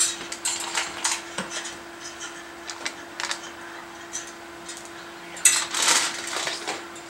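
Light rustling, clicks and taps of thin insulated wires being handled and straightened by hand, with a busier cluster of scraping clicks about five and a half seconds in, over a steady faint hum.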